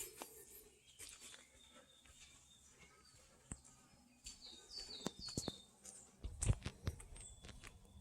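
Forest birdsong: scattered high chirps, with a quick series of short notes stepping down in pitch a little past the middle. In the last couple of seconds a few footsteps crunch on the forest road.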